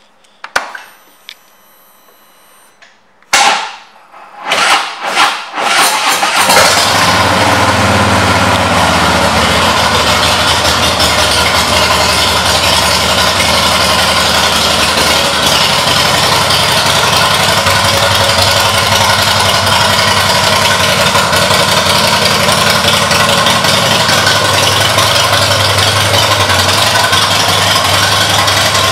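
A 2017 Harley-Davidson Heritage Softail Classic's Twin Cam 103 V-twin, fitted with Cobra aftermarket pipes and an aftermarket intake, is cranked with a few short bursts and catches about six seconds in. It then idles steadily.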